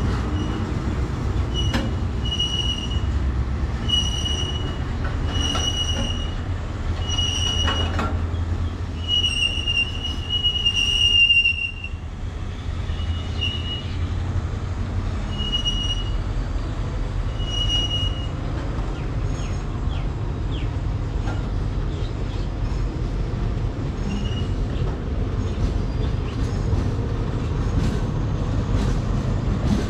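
Empty container flat wagons of a freight train rolling past with a steady rumble, their wheels giving short high squeals about once a second, ending in one longer squeal about twelve seconds in; after that the squeals come only now and then, with a few sharp clanks.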